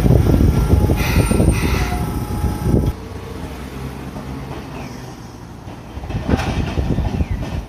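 Hakodate city tram running past close by, a loud low rumble of wheels on rail with brief high squeals, dropping away suddenly about three seconds in as it moves off. A few fainter rail clacks follow near the end.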